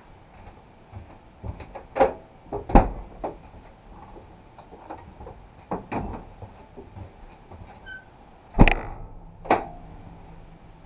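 Irregular sharp knocks and clatter over a faint steady background, with the loudest knocks about two seconds in, just under three seconds in, and a close pair near the end.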